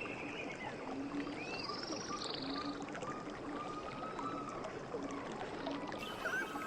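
River water running steadily, with birds calling over it: a buzzy arched call about two seconds in and scattered short chirps. Under them a short low note repeats every half second to a second.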